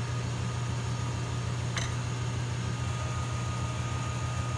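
Rotary vacuum pump on a neon-processing manifold running steadily, a low hum with a fast even pulse. A light click about two seconds in.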